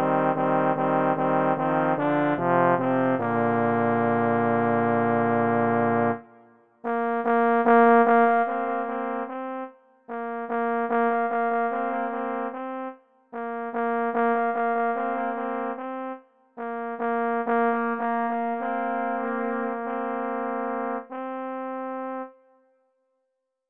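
Trombone trio playing at a slow, solemn tempo in close harmony: a held chord that breaks off about six seconds in, then four short phrases with brief pauses between them, the last chord dying away near the end.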